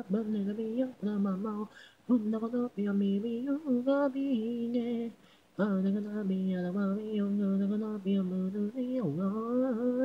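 Unaccompanied female singing: the isolated vocal track of a Japanese pop song, with no instruments. Sung phrases are broken by short pauses about two and five seconds in.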